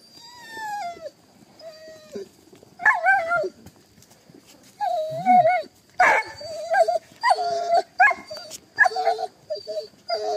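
Hunting dog, an American foxhound, giving a falling howl-like call at the start, then from about three seconds in a string of short, wavering yelps and whines that come faster toward the end. It is the excited baying of a hound that has an armadillo holed up in its burrow.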